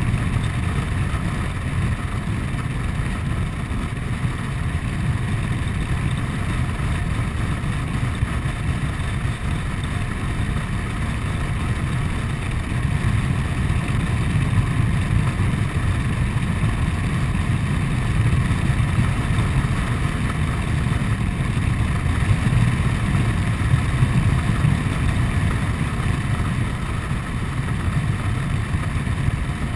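Honda Forza 125 scooter's single-cylinder four-stroke engine running while riding along at a steady pace, mixed with a low rush of wind and road noise. The sound stays even throughout, with small swells in loudness.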